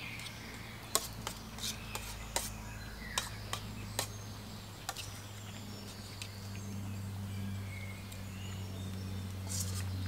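Spoon and fork clinking and scraping against stainless steel camping pots and pans while eating: about ten sharp clicks, mostly in the first five seconds, over a steady low hum, with birds chirping faintly.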